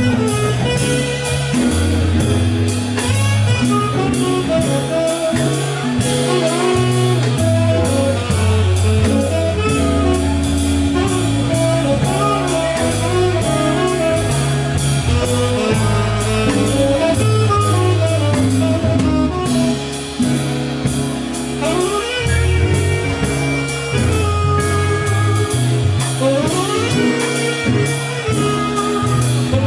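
Live band playing: saxophone, electric guitar and drum kit over a low bass line.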